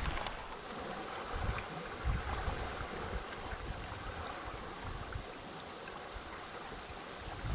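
Small waves lapping on a shallow, rocky lakeshore, a steady wash of water with irregular low buffets of wind on the microphone.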